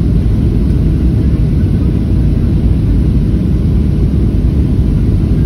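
Steady, loud cabin rumble of a Boeing 737 on final approach: engine noise and rushing air over the extended flaps, heard from a window seat inside the cabin.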